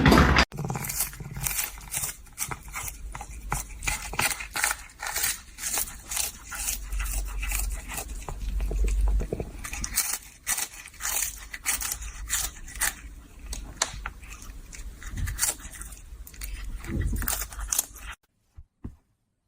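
Dense, irregular clicking and scraping, like crunching or crackling, that stops abruptly about 18 seconds in.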